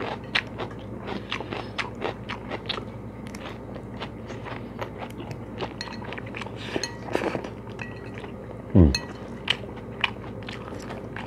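Close-miked chewing of a mouthful of rice vermicelli, roast pork and salad leaves, with crunches and small mouth clicks throughout. Near the end there is one short, loud, low sound that slides down in pitch.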